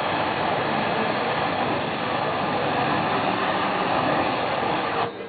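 Aerosol spray can fired through a lighter flame as a torch over wet spray paint, giving a steady rushing hiss of burning spray that cuts off suddenly about five seconds in.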